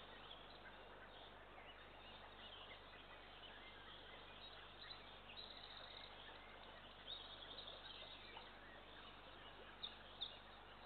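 Faint songbird calls and chirps over a steady background hiss, with two brief louder chirps near the end.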